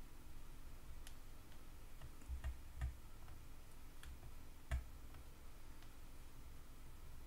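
Faint, irregular clicks and light knocks, about five in all with the sharpest a little past the middle, as a computer mouse is clicked and moved on the desk.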